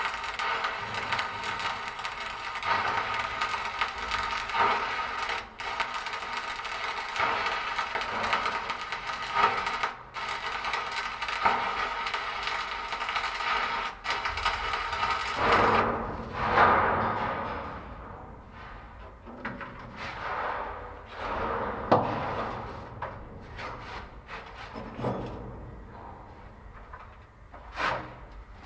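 Arc welding: the electrode's arc crackling and sizzling steadily. About sixteen seconds in the arc stops, and scattered short knocks and scrapes follow.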